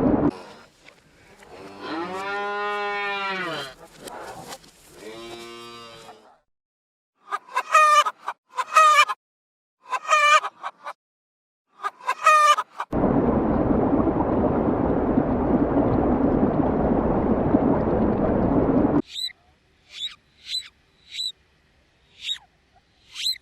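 A run of different animal sounds: a cow lowing twice in long, rising-and-falling moos, then five short, harsh calls of a farm fowl. A steady rushing noise follows for about six seconds and stops abruptly, then a series of short, high bird chirps.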